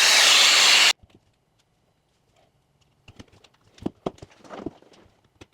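Hairdryer blowing steadily, switched off abruptly about a second in, after heating the phone to soften its adhesive; then scattered light clicks and taps of small tools on the phone.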